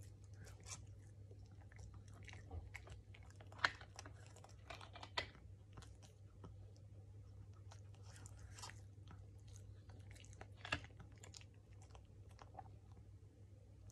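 Shih Tzu chewing food taken from a hand: irregular small clicks and crunches of its jaws, the sharpest about three and a half seconds in.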